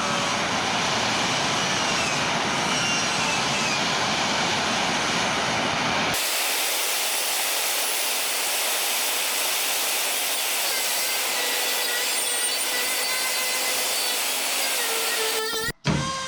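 A power tool abrading the Chevelle's body sheet metal, stripping paint and filler from the spot welds: a steady grinding rasp. About six seconds in it changes abruptly to a thinner, higher sound, and it cuts out briefly near the end.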